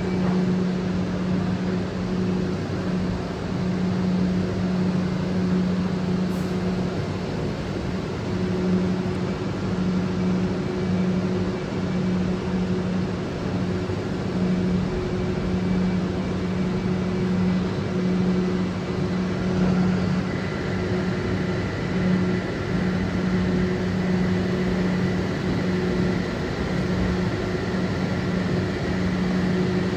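Steady electric hum of a Southern electric train standing at the platform, pulsing unevenly, over the station's background noise. About two-thirds of the way in, faint high whines join.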